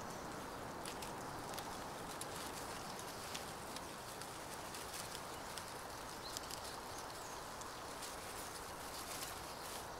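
Fern fronds and foliage rustling as they are handled and tucked into a wreath, with a scatter of small sharp crackles and clicks over a steady background hiss.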